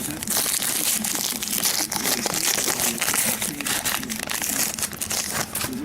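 The wrapper of a trading-card pack crinkling and crumpling as it is handled and opened: a dense, continuous run of crackles.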